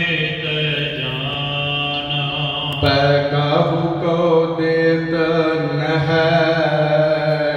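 Sikh devotional chanting of Gurbani over a steady low drone, the melody held in long notes; a new, fuller phrase comes in about three seconds in.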